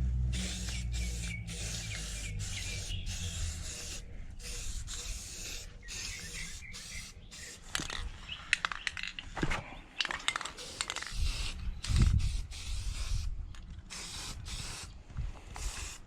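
Spray paint hissing in repeated short bursts, stopping and starting many times as the final colour coat goes on. A few clicks and knocks come in the second half.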